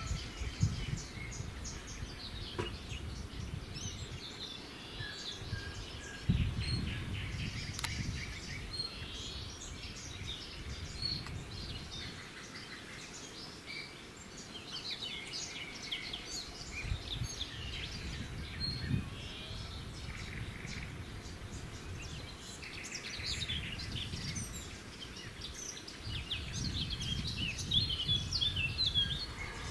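Birds chirping and calling in many short, high notes throughout, with a low rumble that comes and goes.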